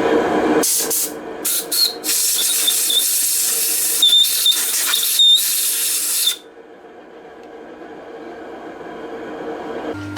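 Compressed-air blow gun hissing loudly in several short blasts with a thin squealing whistle, cutting off suddenly about six seconds in. After that a quieter milling machine hum slowly builds.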